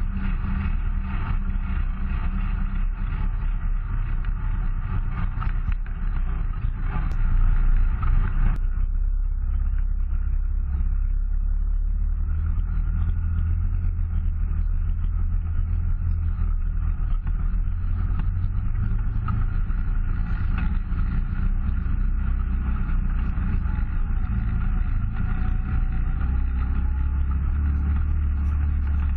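Yamaha Wolverine side-by-side's engine running steadily while driving a dirt and rocky trail, a low drone with rough road noise over it. About eight seconds in it briefly gets louder, after which the higher hiss thins out.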